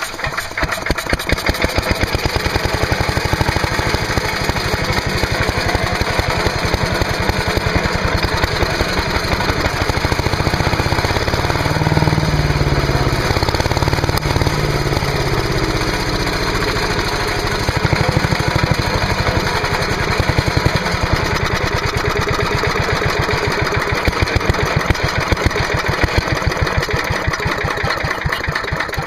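5 HP Briggs & Stratton horizontal-shaft engine on an MTD chipper/shredder running steadily, picking up speed for a few seconds in the middle. It keeps running on gas drawn from the tank, not just the starter fluid: it has spark and fuel.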